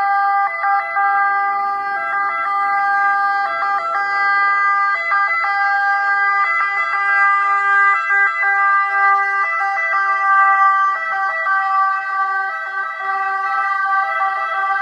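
Italian ambulance siren sounding on an emergency run as the ambulance drives past. It is a chord of steady tones, loudest about ten seconds in.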